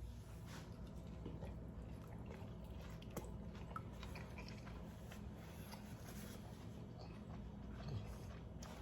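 Faint chewing of a bite of steak taco, with a few small soft ticks, over a low steady hum.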